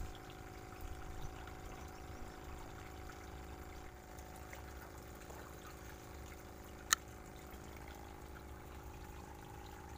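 Steady trickle of flowing water with a faint, steady hum under it, and one sharp click about seven seconds in.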